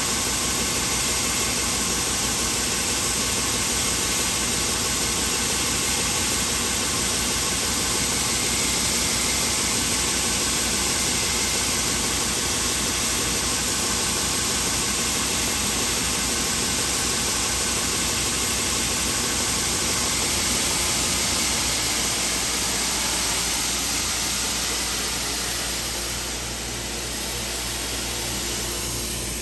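A woodworking power tool running steadily, a loud, even whir and hiss. It eases slightly in the last quarter.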